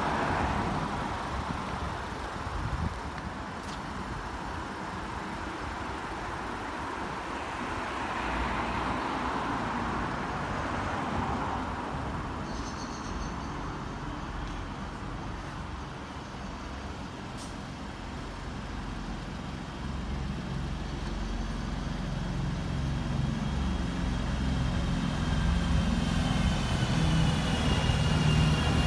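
Road traffic on a city street: a continuous rumble of passing vehicles, growing louder near the end as a heavier engine comes close.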